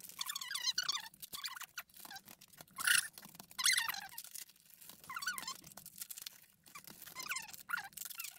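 Plastic shrink-wrap squeaking and crinkling as it is peeled off CD packages, in several short spells, with one sharper tearing rip about three seconds in.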